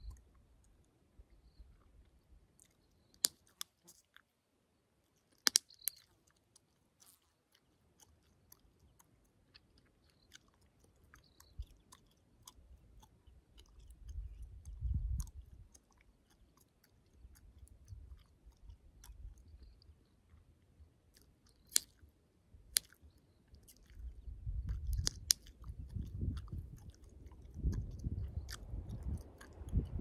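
Gum chewing close to the microphone, with several sharp gum pops: a couple a few seconds in and more in the second half. Low rumbling noise swells around the middle and again through the last several seconds.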